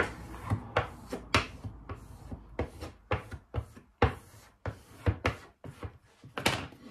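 A small plastic squeegee is swiped in short, quick strokes over vinyl paint mask on an oak board, pressing it flat and pushing out trapped air. It makes a series of irregular scraping rubs, about three a second.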